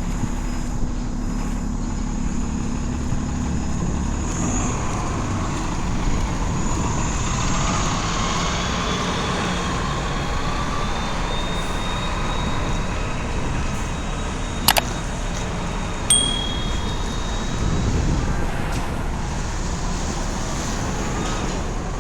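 Steady city traffic noise with vehicle engines running, a faint high whine that rises a few seconds in, a sharp click about fifteen seconds in and a short high beep just after.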